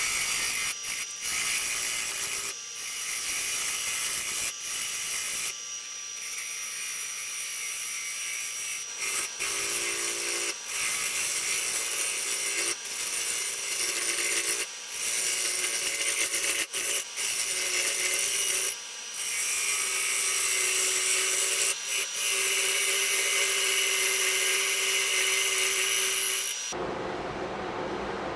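A turning tool cuts a large bowl of very hard, dried pecan spinning on a wood lathe, making a rough scraping hiss. The hiss breaks off in short gaps as the tool is lifted, over a steady whine from the lathe. The cutting stops suddenly near the end.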